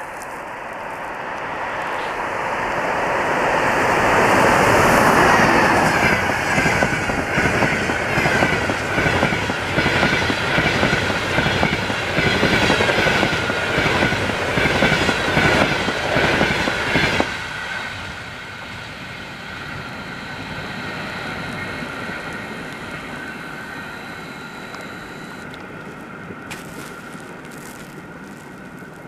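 EP20 electric locomotive and its passenger train passing at speed: a rising rush as the locomotive arrives and goes by about five seconds in, then the rapid clickety-clack of the coaches' wheels over the rail joints, with a steady high tone running under it. The clatter cuts off abruptly about seventeen seconds in as the last coach passes, leaving a softer rumble that fades as the train recedes.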